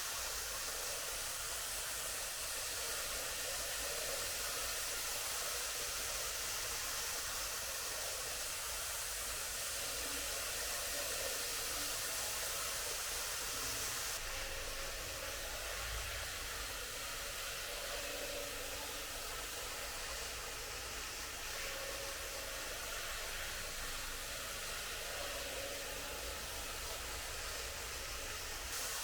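Tomix N-scale model train running on its track: a steady whirring hiss of motor and wheels, with the high hiss easing a little about halfway through.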